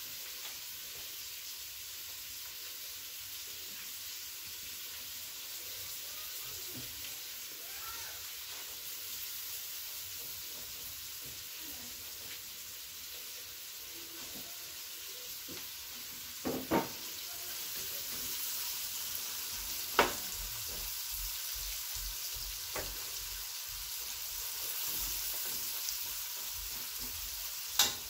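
Finely chopped onions sizzling in hot ghee in a stainless steel karahi, being fried until brown, with a steady hiss. A metal spoon stirs them, and it clinks sharply against the pan a few times in the second half, loudest about twenty seconds in and near the end.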